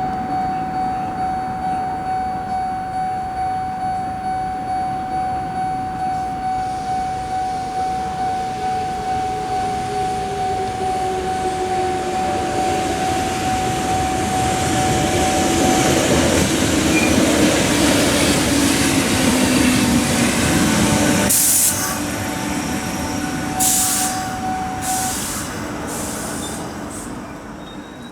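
Japanese level-crossing alarm ringing its rapid, even 'kan-kan' while an electric train rolls through, the train's rush of wheels and a whine that slowly falls in pitch building to a peak past the midpoint. A few sharp knocks follow, and the crossing bell stops near the end.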